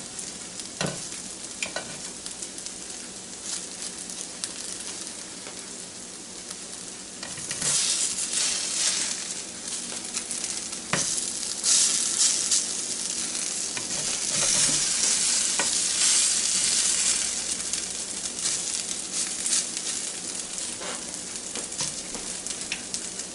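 Hash browns of potato, onion and sweet pepper sizzling in a Copper Chef square nonstick pan while a black slotted spatula stirs and scrapes them, with scattered clicks of the spatula on the pan. The sizzle grows louder for several seconds in the middle.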